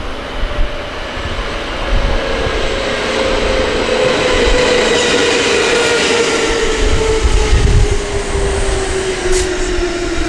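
Kintetsu electric train running through the station, its motor whine falling slowly and steadily in pitch over the rumble of wheels on the rails.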